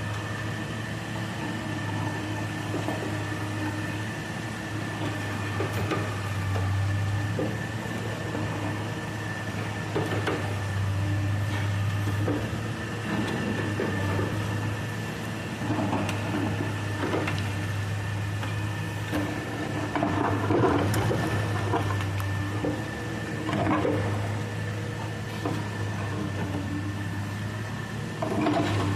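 Excavator engine running steadily, with a constant whine over its hum. Irregular scrapes and knocks come and go throughout, thickest past the middle, as the bucket cuts and trims soil.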